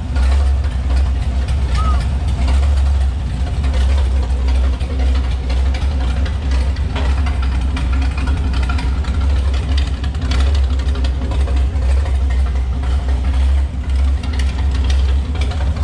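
Vintage race car's engine idling loud and steady, freshly started and still cold, through an exhaust with little or no muffling.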